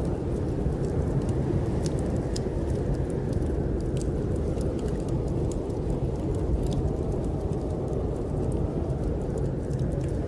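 Steady low rumble of snowstorm wind, with scattered sharp crackles of a wood fire burning in a fireplace.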